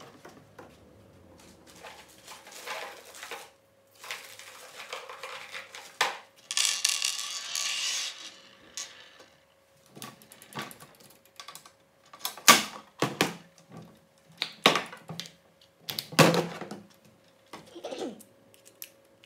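Hard 3D-printed plastic housing parts and small metal screws being handled and fitted together on a tabletop: irregular clicks, knocks and clatter, with a longer rustling scrape about seven seconds in and a run of sharper clicks in the second half.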